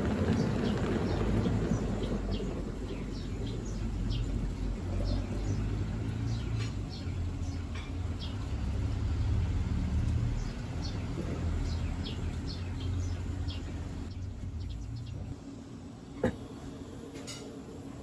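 Panasonic top-load inverter washing machine's tub turning with a wet load and coasting down, its low hum and rush fading away over about fifteen seconds, with light ticks throughout. A sharp click comes about sixteen seconds in, then a fainter one a second later.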